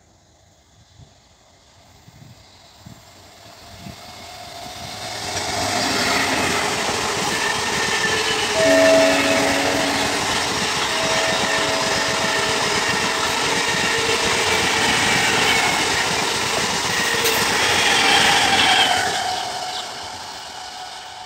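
MEMU electric multiple-unit train passing at speed, its wheel-and-rail noise building as it approaches, staying loud as the coaches go by and fading as it draws away. Its horn sounds twice, around nine seconds in and again around eleven seconds in.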